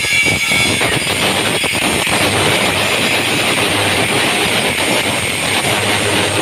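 Makita electric angle grinder running steadily, its disc grinding down weld joints on a steel loom frame.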